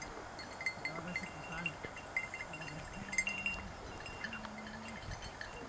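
Small bells tinkling irregularly, with two faint drawn-out low calls about halfway through.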